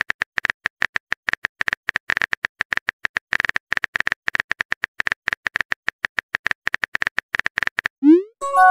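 Texting-app keyboard sound effect: rapid short clicks, about eight a second, each with a high tick, as a message is typed out. Near the end a quick rising whoosh, the send sound, is followed by the start of a message chime.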